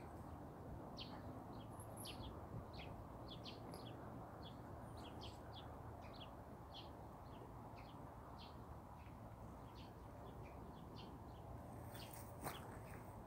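Small songbirds chirping and twittering, many short high calls scattered throughout, faint over a steady low hum. Near the end come a few sharp clicks and rustles.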